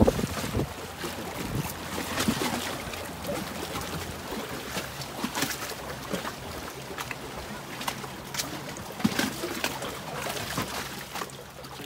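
Water splashing and sloshing at the surface as a hooked fluke (summer flounder) thrashes beside a dock piling, in a string of short irregular splashes. A low steady hum runs underneath.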